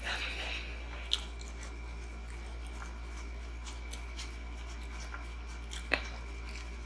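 Fingers picking at fried onion rings and breading on a serving platter, making small crackles and clicks. About six seconds in comes a louder sharp click as a fried piece is bitten. A steady low hum runs underneath.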